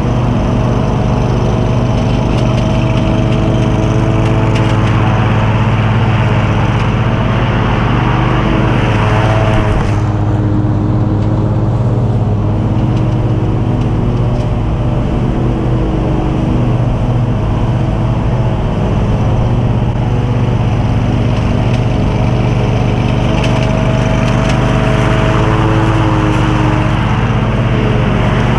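John Deere QuikTrak stand-on mower running steadily while mowing: a constant engine drone with the rush of the cutting deck, the higher hiss easing off briefly about ten seconds in.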